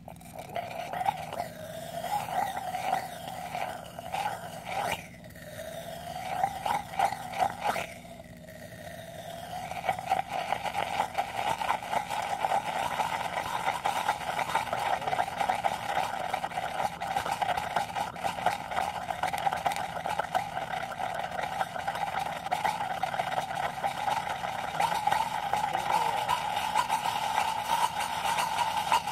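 Screaming gummy bear reaction: a fruit snack burning in molten sodium chlorate inside a glass test tube. For the first several seconds it comes in uneven sputtering spurts. About ten seconds in it settles into a steady screaming hiss that slowly climbs in pitch, as the sugar burns fiercely in the oxygen given off by the decomposing chlorate.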